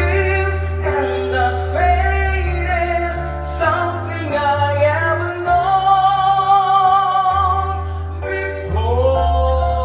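Singing over a backing track with a steady bass line: long held sung notes with vibrato, one of them held for nearly two seconds midway.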